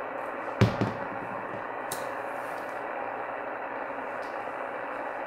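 Shortwave receiver tuned to 27.385 MHz, CB channel 38 lower sideband, giving a steady static hiss between transmissions. A sharp knock about half a second in, followed by a smaller one, is the loudest sound, with a faint click near two seconds.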